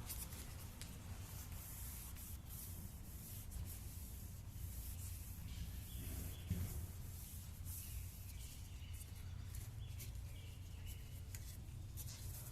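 Scratchy, on-and-off rubbing on a plastic headlight lens, worked by hand, over a steady low hum.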